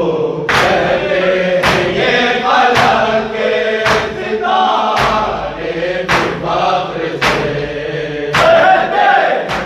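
Men chanting a noha together, each line kept in time by a sharp, regular chest-beating strike (matam) about once a second.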